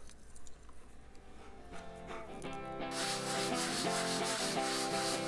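A hand sanding block rubbing over a dried joint-compound patch on drywall in repeated strokes, starting about three seconds in, over background music that comes in a moment earlier.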